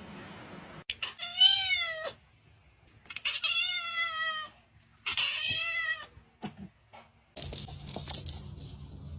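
Domestic cat meowing three times in long, drawn-out meows, the middle one the longest. Near the end a steady background hiss cuts in.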